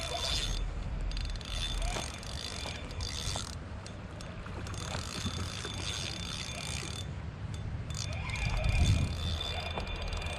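Fishing reel cranked in stop-start bursts, its gears and clicks whirring as a catfish is reeled in, over low wind rumble on the microphone. There is a low bump near the end.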